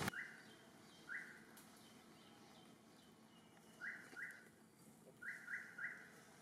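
A small bird chirping: soft, short calls that each rise quickly in pitch, single at first, then a pair about four seconds in and a quick run of three near the end.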